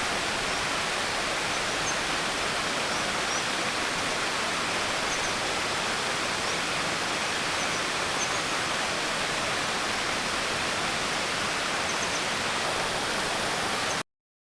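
Rushing water of a mountain stream, a steady even noise, with a few faint high chirps above it. It cuts off abruptly near the end.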